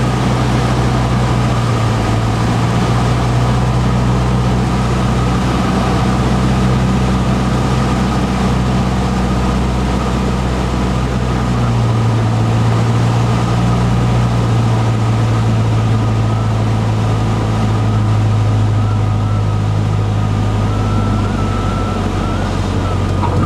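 Cessna 150's Continental O-200 four-cylinder engine and propeller droning steadily, heard from inside the cockpit. The engine note shifts about halfway through.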